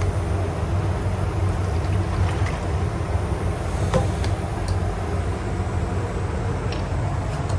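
Steady low machine hum with a noisy hiss over it and a few faint ticks.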